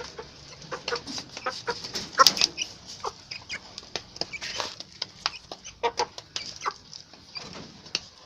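Flock of chickens clucking, with many short calls overlapping and a louder burst of calls about two seconds in.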